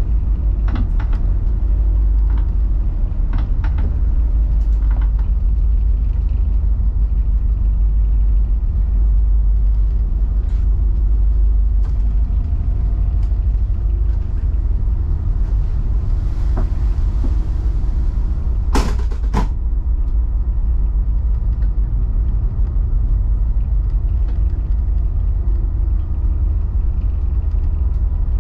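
Tug's engines running, a steady low rumble heard inside the wheelhouse, with a few light clicks and a sharp double click about two-thirds of the way through.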